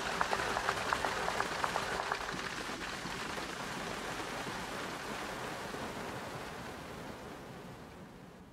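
A steady rushing of breaking surf and wind on the microphone. In the first two seconds it comes with a rapid, regular ticking of about five a second over a held tone. The whole sound fades out near the end.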